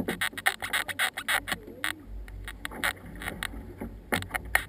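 Water splashing and dripping off canoe paddles and slapping the hull in quick, irregular spatters. About two seconds in, a low wind rumble on the microphone sets in underneath.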